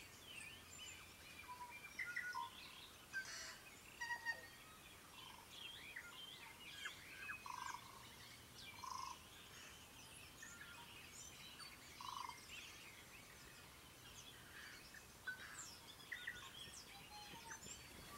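Dawn chorus of many wild birds calling and singing at once: a continual stream of overlapping chirps, whistles and short notes. A few fuller, lower notes stand out about seven, nine and twelve seconds in.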